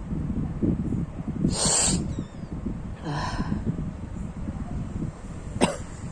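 A sneezing fit: a hissing sneeze about a second and a half in, a softer, more voiced one about three seconds in, and a short sharp one near the end, over a low rumbling noise.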